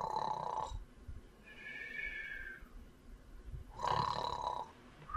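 A sleeper snoring in the cartoon pattern: a snore on the in-breath, then a thin whistle dipping slightly in pitch on the out-breath, twice over.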